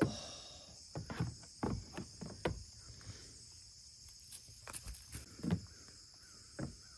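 Goat hooves knocking on a plastic playground slide as a goat steps up it: a run of irregular knocks in the first couple of seconds, then two single knocks near the end. A steady high insect drone runs underneath.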